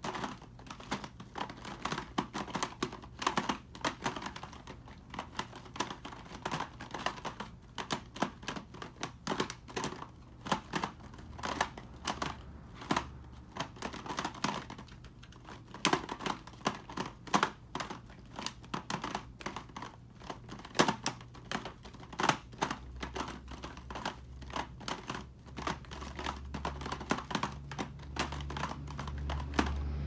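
Large 18 cm stickerless 3x3 puzzle cube being turned by hand: the plastic layers click and clack rapidly and irregularly as they rotate and snap into place.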